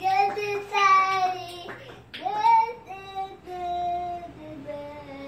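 A small boy singing a song in long held notes, in two phrases with a short break about two seconds in.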